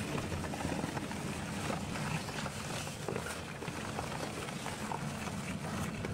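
Dual-shaft industrial shredder running with a steady low hum and scattered cracks as its hooked blades tear a car tire apart.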